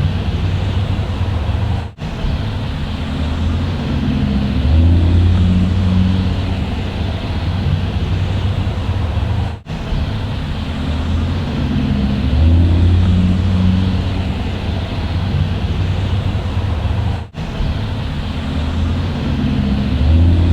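Bus engine running steadily with a low hum, swelling louder for a few seconds at a time and easing back. There is a brief dropout about every eight seconds.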